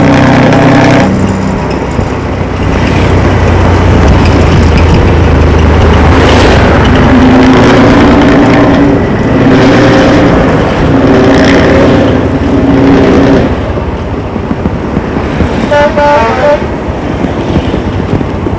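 Bus with a rumbling aftermarket 'ngorok' exhaust running loud, sounding its horn in three blasts of a second or two each in the middle, then a short choppy run of higher horn notes near the end.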